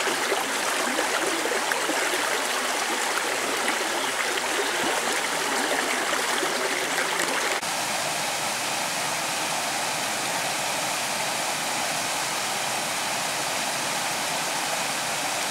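Shallow river running over rocks and small rapids, a steady rush of water with some gurgling. About halfway through the sound shifts abruptly to a smoother, even rush.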